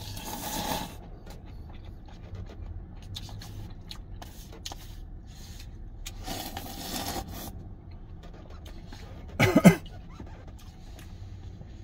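Noisy slurping of spicy cup noodles, once at the start and again around six seconds in with the paper cup at the mouth. A short, loud cough about nine and a half seconds in.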